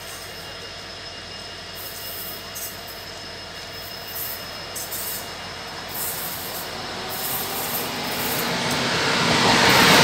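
A diesel-hauled passenger train approaching on the adjacent track, its rumble and wheel noise growing steadily louder over the last few seconds as the locomotive comes level. A steady high whine runs underneath.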